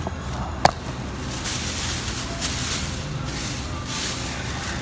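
Steady low rumble and hiss of background noise, with one sharp click about two-thirds of a second in.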